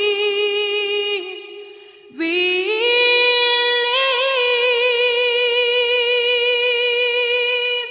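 Background music: a woman singing long held notes, one fading out about a second in, then after a short dip a single note held for about five seconds with a little vibrato.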